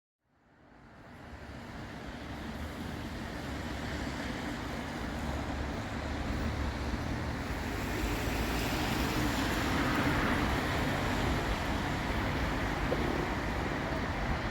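Steady room noise of a pub between tunes, a low rumbling hiss with no clear words or music, fading in from silence.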